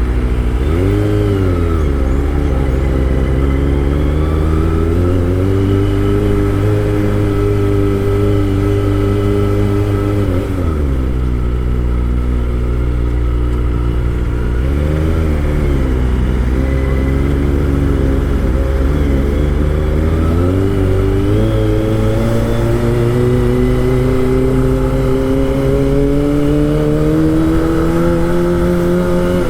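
Kawasaki Ninja ZX25R's 250 cc inline-four engine running under way: the revs rise and fall briefly about a second in, drop off near the middle, blip again shortly after, then climb steadily through the last third as the bike accelerates.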